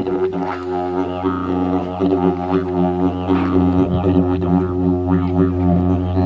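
Didgeridoo playing a continuous low drone, with its overtones shifting up and down throughout.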